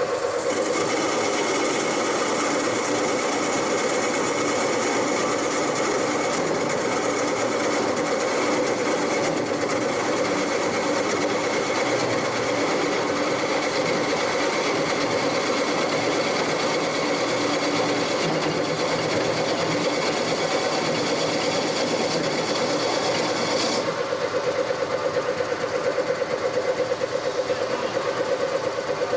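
CNC turning lathe running steadily, its steady hum pulsing quickly, with a higher hiss over it that cuts off suddenly about 24 seconds in while the machine keeps running.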